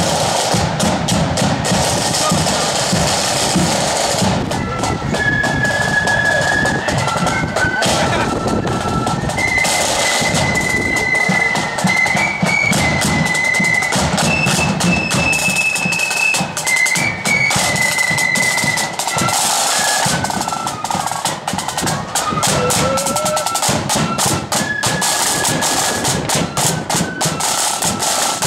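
Marching flute band playing: side drums rattling and a bass drum beating, with flutes taking up a high melody about four seconds in.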